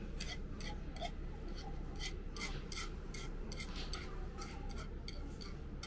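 Chopsticks clicking and scraping against a soba bowl in quick, irregular taps while the last bits of broth and toppings are gathered, over a low, steady background hum.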